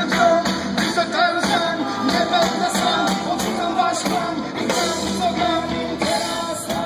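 Live reggae band music from the stage PA, with a singer's voice over the beat, heard loud from within the audience.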